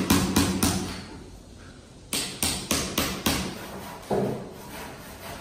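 Hammer striking a chisel to chip the top of a concrete wall, sharp metal blows about three a second. The blows come in two runs with a pause of about a second between them, then a single duller knock about four seconds in.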